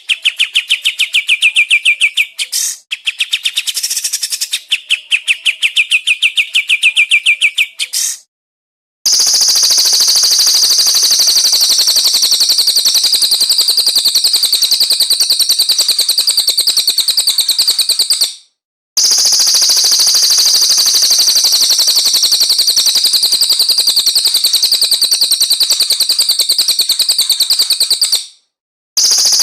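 Recorded songbird song played for bird training: first a fast run of repeated high notes, then a dense, very rapid high-pitched chatter in stretches of about nine seconds, each cut off abruptly by a brief silence before the next.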